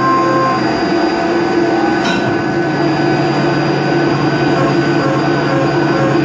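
XYZ 560HD CNC vertical machining centre roughing aluminium flat out at about 10 metres per minute with WNT Circle Line DLC end mills: steady cutting noise with several steady tones, and a sharp click about two seconds in.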